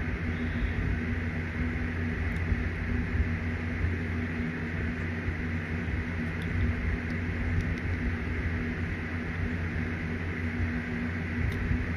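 A steady low mechanical hum with an even fan-like hiss, broken by a few faint clicks.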